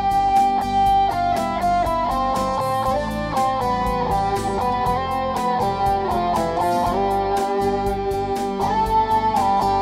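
Instrumental theme music with held melodic notes over a steady beat.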